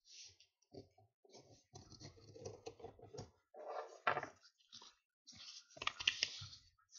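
A paper envelope being handled, folded and creased by hand: irregular rustling with sharper crackles of the paper about four and six seconds in.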